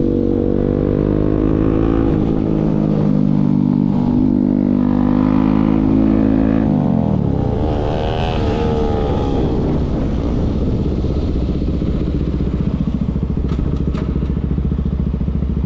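Single-cylinder Bajaj Pulsar NS motorcycle engine through an aftermarket Akrapovic full-system exhaust, held at steady revs. About seven seconds in the revs drop away and it settles into a fast, pulsing low burble.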